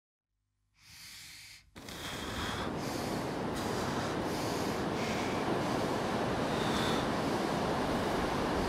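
Wind and sea surf buffeting the microphone: a steady rushing that starts suddenly after a short silence and a brief soft rush.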